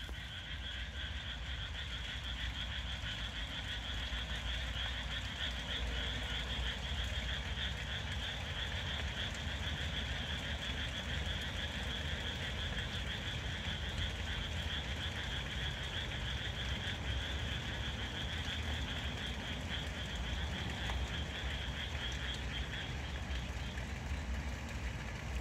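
A chorus of Japanese tree frogs calling, many rapid calls overlapping into a continuous high chatter that thins out near the end, over a low steady rumble.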